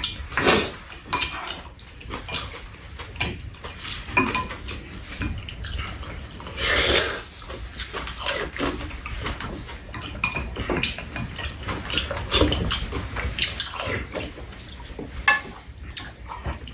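Spoons scraping and tapping against bowls and a frying pan, with chewing and slurping of two people eating, in short irregular clicks and scrapes.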